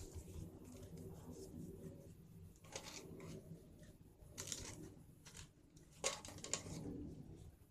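Fresh banana leaf rustling and crinkling as it is folded and wrapped by hand, with a few sharper crackles about three, four and a half and six seconds in.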